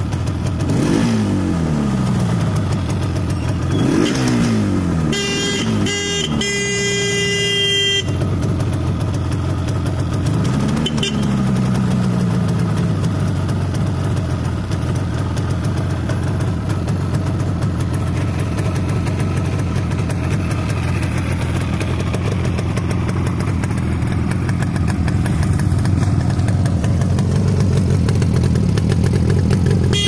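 Yamaha RD350 two-stroke twin on points ignition, idling with throttle blips: the revs climb and fall back three times in the first dozen seconds, then it settles into a steady idle. A horn sounds for about three seconds early on.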